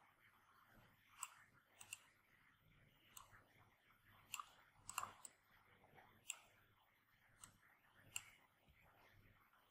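Computer mouse buttons clicking, about ten faint, sharp clicks at irregular intervals, a few of them in quick pairs, over a low hiss.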